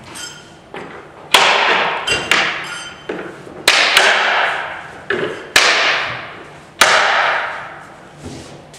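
About seven sharp knocks on a large upright plywood box panel as its Clip-Lok edge clips are fitted, each ringing out through the panel. There is a faint metallic jingle before the first knock.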